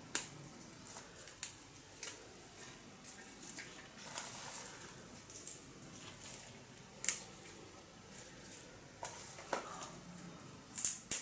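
Fresh herb sprigs being picked apart by hand: irregular crisp snaps of stems and rustles of leaves, the loudest about seven seconds in and a quick cluster near the end.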